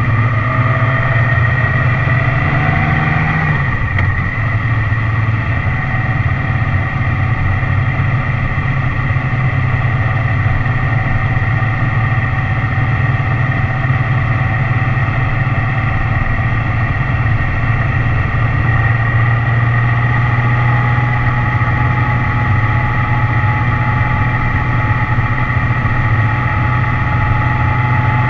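Motorcycle engine running under way, heard from on the bike. It rises in pitch for the first three seconds or so, drops at a shift about three and a half seconds in, then holds a steady cruising note.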